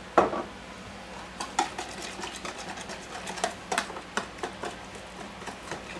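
A wire whisk stirring a marinade in a plastic tub, its wires clicking and scraping against the sides in an uneven rhythm. A single knock comes just at the start.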